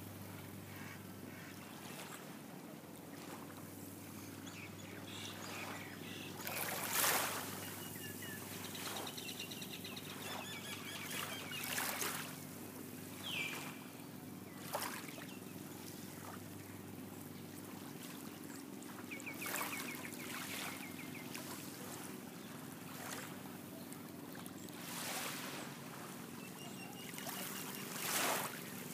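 Calm seawater lapping at the shore in a few short, soft washes, over a steady low engine hum, with brief series of high bird chirps now and then.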